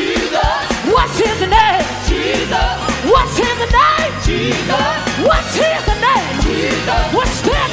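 Live gospel praise music: voices sliding through runs over a band with a fast, steady drum beat, and a congregation clapping along.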